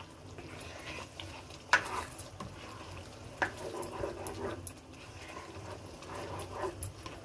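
Thick chicken karahi masala being stirred and fried down with a spatula in a non-stick karahi: wet squelching and scraping, with a few sharp clicks of the spatula against the pan, the loudest about two seconds in and again at about three and a half seconds.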